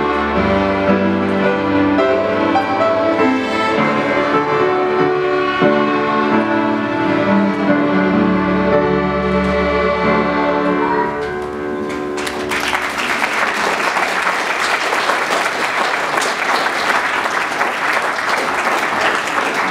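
Young string orchestra with piano plays the last bars of a piece and ends on a held chord that dies away about eleven seconds in. The audience then applauds to the end.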